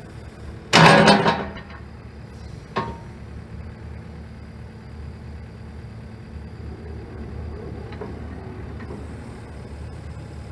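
Takeuchi excavator running with a steady low engine drone while its boom and bucket are worked. A loud clank comes about a second in, and a smaller, ringing knock comes near three seconds.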